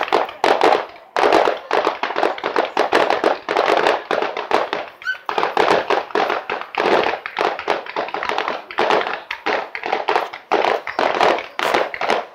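Aerial fireworks going off in rapid succession: a dense stream of bangs and crackles, with a brief lull about a second in and another about five seconds in.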